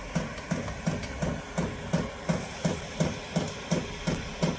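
Chinese diesel heater's fuel dosing pump ticking steadily, about three clunky clicks a second, over a low steady hum while the heater primes. The pump is running with no fuel yet in the line, so the heater goes on to shut down without firing.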